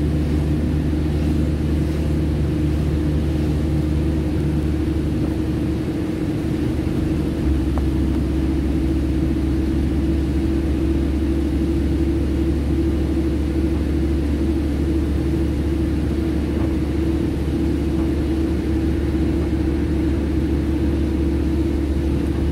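Car tyres running through slush on a wet road, heard from inside the moving car as a steady low rumble with a hum.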